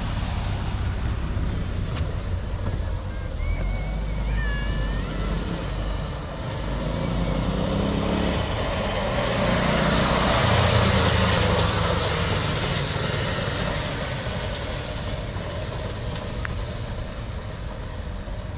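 Small engine of a homemade three-wheeled all-terrain motorcycle rising in pitch as it picks up speed, loudest as it passes close about ten seconds in, then fading as it moves away.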